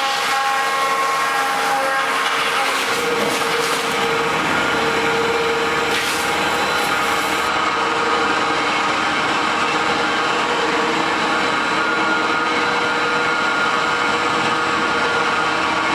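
Wood-log sawdust machine (crusher) running steadily, with a constant whine over a dense mechanical noise; a high hiss cuts out about halfway through.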